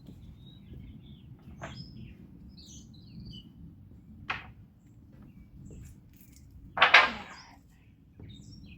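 Birds chirping here and there over a low steady rumble. Short knocks cut in a few times, the loudest a brief clatter about seven seconds in.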